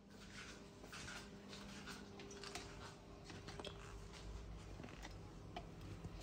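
Faint, irregular small clicks and taps, many of them in quick succession, over a low steady background.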